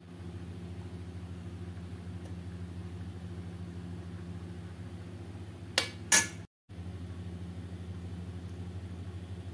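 Steady low mechanical hum with a few even tones, like a motor running, and two short sharp clicks a little past halfway, with a momentary dropout just after.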